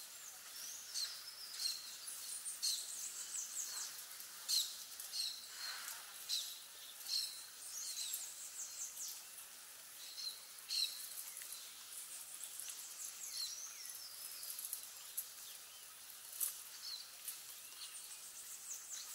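Many birds chirping and calling, a steady stream of short, high chirps that fall quickly in pitch, some in quick series, over a faint steady hiss.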